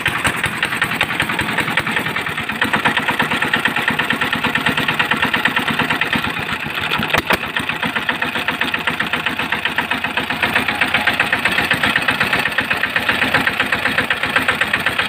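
Small single-cylinder diesel engine running steadily without a silencer, a fast even train of exhaust pulses. The abnormal knock it had is gone: a broken piece of air-filter material had been caught between the piston and the cylinder head and has now been removed.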